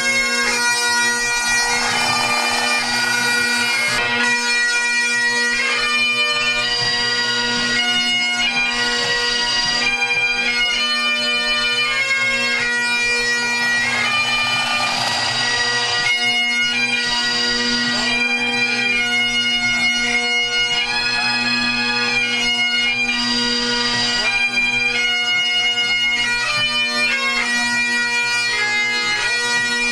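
Pipe band's Great Highland bagpipes playing a tune over a steady, unbroken drone during the band's warm-up.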